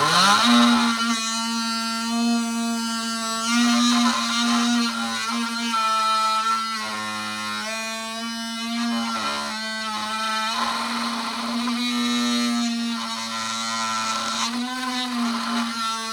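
Electric oscillating multitool fitted with a titanium blade, spinning up and then running steadily while cutting. Its steady buzz shifts in tone as the blade bites into the material.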